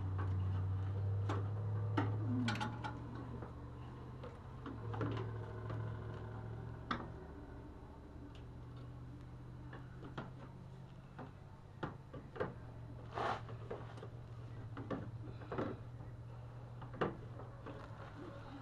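Plastic headlamp and turn-signal assembly clicking and knocking against the fender and its mounting brackets as it is worked into place by hand, with about a dozen scattered taps. A steady low hum runs underneath.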